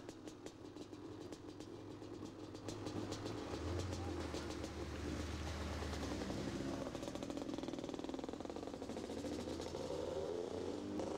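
Motor vehicle engines running, growing louder about three seconds in, with an engine note rising near the end.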